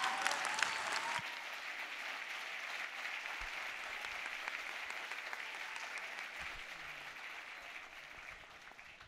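Audience applauding, with a few voices calling out over it in the first second, then the clapping slowly dies away.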